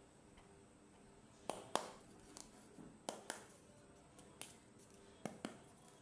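Sharp clicks and taps of small plastic toy pieces being handled, several coming in quick pairs.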